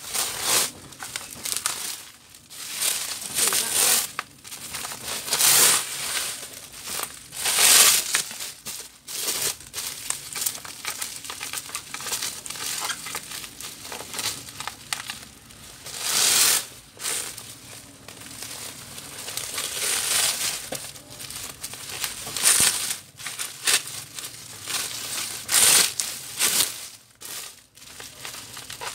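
Bubble wrap and plastic packaging crinkling in irregular bursts as it is unwrapped from a replacement laptop LCD panel.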